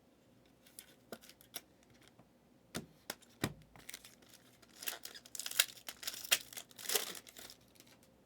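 A trading-card pack wrapper being torn open and crinkled, with scattered sharp clicks of handling; the crinkling is densest and loudest in the second half.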